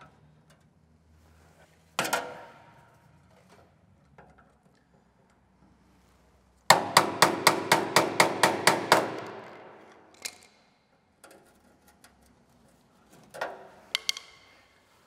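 Metal-on-metal hammering on a tool held against the sheet-steel cabinet of an old P&H arc welder, striking to free a stubborn cabinet screw. There is one ringing blow, then a quick run of about a dozen blows at about five a second, then a few lighter taps near the end.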